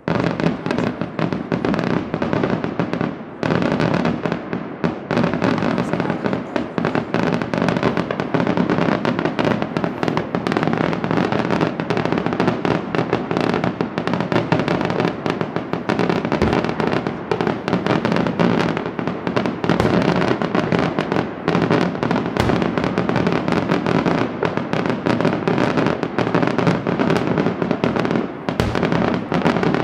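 Daytime fireworks barrage: a dense, continuous rattle of bangs and crackling reports from bursting aerial shells and firecrackers. It starts abruptly, eases briefly about three seconds in, and carries on unbroken.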